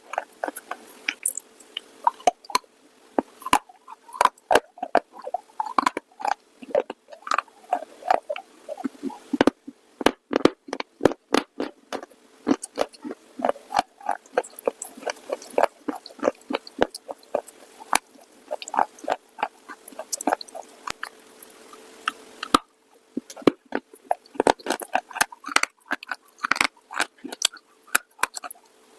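Close-miked biting and crunching of hard, dry clay pieces: a rapid, irregular run of sharp crackling crunches with short pauses between bites, over a faint steady hum.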